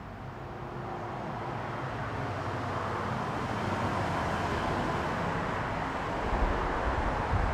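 Cars driving past on a busy main road: a steady hiss of tyres and engines that grows louder over the first few seconds as a vehicle approaches, with low rumbles near the end.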